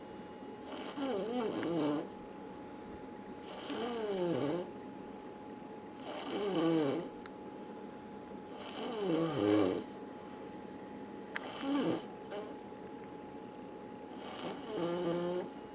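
Snoring: six snores about every two and a half seconds. Each is a noisy, rasping breath with a pitched tone that slides downward.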